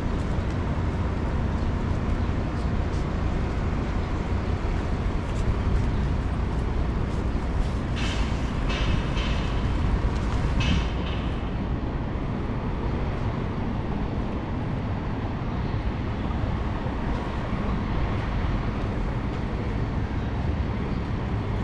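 City street traffic: a steady low rumble of engines and passing vehicles. A few short high-pitched bursts come about eight to eleven seconds in.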